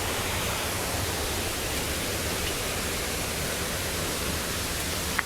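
Waterfall rushing: a steady, even roar of falling water. A brief sharp click right at the end.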